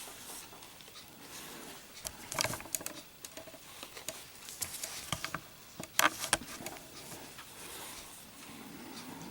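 Light handling sounds of a Zippo lighter and its box: a few scattered clicks and taps, in clusters around two seconds in and again around six seconds in.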